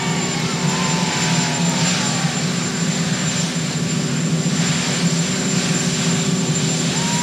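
Marine One, a Sikorsky VH-3D Sea King helicopter, running on the ground with its turbines and rotor making a loud, steady drone.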